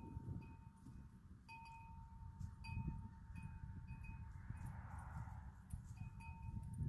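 Wind chime ringing: one long sustained tone with several short, higher struck notes, over a low rumble.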